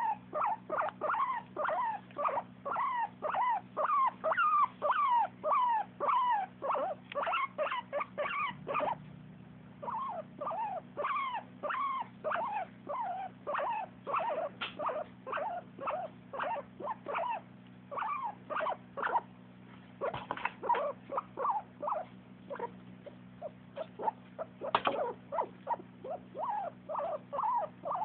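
A pet animal making a long run of short, pitched calls, about two or three a second, with a short pause about nine seconds in: the animal's happy, contented sounds.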